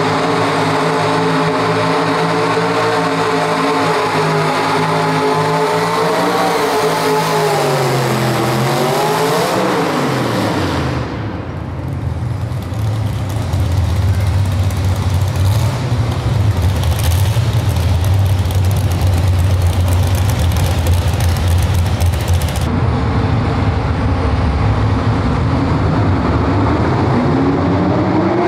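Pull truck's engine held at high revs under load as it drags the weight sled, its pitch falling away about eight to ten seconds in as the truck comes off the throttle at the end of the pull. A steady low engine drone follows, and near the end another pull truck's engine revs up with rising pitch as it begins its run.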